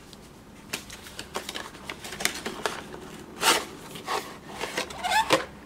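Cardboard and plastic packaging of a GoPro Hero 8 box rubbing and scraping as its inner sleeve and tray are slid out by hand, with scattered small clicks and taps. The loudest scrapes come about three and a half and five seconds in, with a brief squeak near the end.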